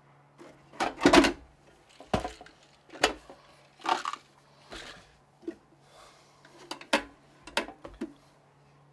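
Small steel mini toolboxes being handled and moved about: a string of irregular metal clunks and knocks with some rattling, the loudest about a second in.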